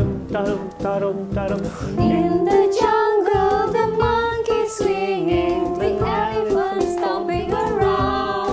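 A children's song: singing over a plucked-string accompaniment, with the sung melody coming in about two seconds in.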